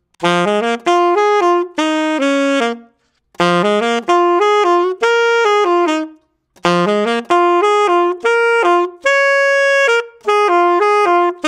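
Unaccompanied saxophone playing a melody of quick notes in three short phrases with brief pauses between them; the third phrase holds one long note about nine seconds in.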